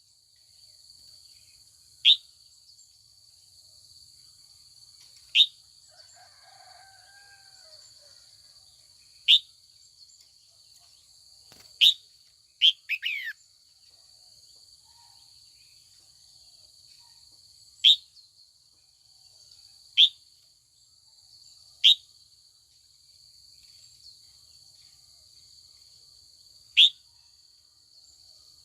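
Female red-whiskered bulbul giving short, sharp, downward-sliding call notes every few seconds, with a quick run of several notes about halfway through. A steady high insect drone runs underneath.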